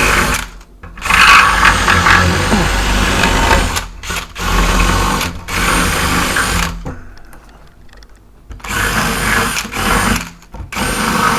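Power drill running in several bursts of one to three seconds, stopping briefly between them, with a longer pause about halfway through.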